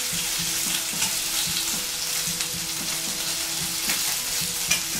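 Food sizzling as it fries in a pan: a steady hiss with scattered crackles and a couple of sharper pops near the end, over a low steady hum.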